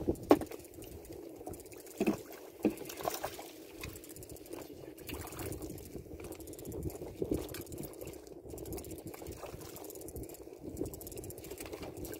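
Sea water lapping and sloshing against a small boat's hull, with a few sharp knocks in the first three seconds.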